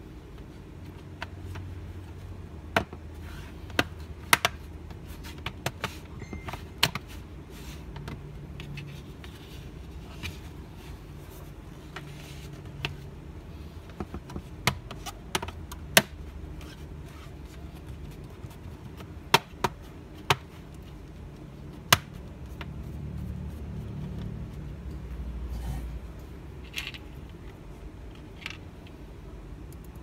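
Plastic bottom cover of an Acer Aspire 3 laptop being pressed back onto the chassis by hand, its retaining clips snapping into place in scattered sharp clicks over a low rubbing and handling noise.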